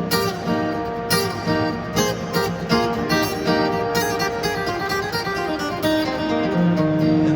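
Instrumental break in a live acoustic country song, with acoustic guitar picking a run of plucked notes over held tones and no singing.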